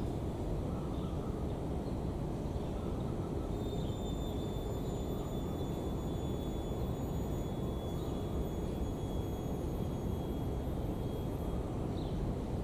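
Steady rushing noise of heavy rain, strongest in the low range and unbroken throughout.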